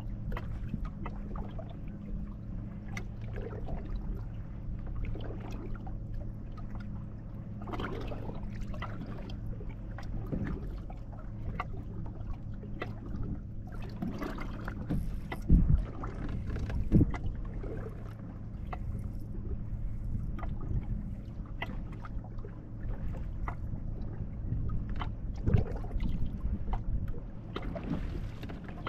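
Bass boat's outboard motor running steadily at speed, a constant low hum under rushing noise. A few heavier thumps come about halfway through and again near the end.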